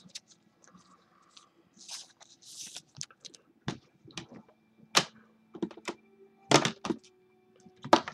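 Trading cards being handled on a table: plastic card holders and card packaging clicking and tapping, with a few short rustles.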